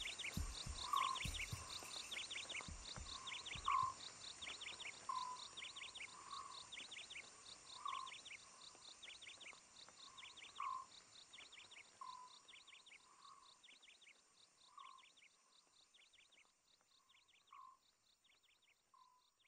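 Nature-ambience soundtrack of repeating animal calls: a short lower call about every second and a half, with quick high falling chirps in small groups between, steadily fading out.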